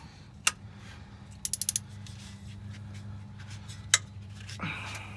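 Socket ratchet clicking as a starter mounting bolt is loosened: a quick run of about half a dozen clicks, with a few single clicks before and after. A steady low hum runs underneath.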